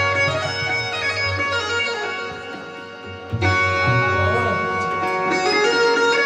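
Music with many held tones over a low, pulsing beat. It thins out briefly around the middle and comes back fuller just past halfway.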